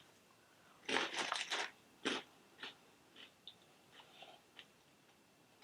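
A person chewing a crunchy corn snack: a quick run of crackly crunches about a second in and one more shortly after, then smaller, fainter crunches thinning out as the mouthful breaks down.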